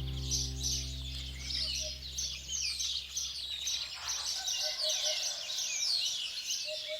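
Small songbirds chirping over and over, many quick downward-sweeping chirps overlapping several times a second. A held music chord fades out in the first couple of seconds.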